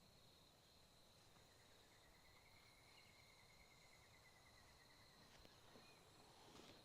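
Near silence: faint room tone with a thin, steady high-pitched tone, and a faint drawn-out whistle from about one and a half seconds in.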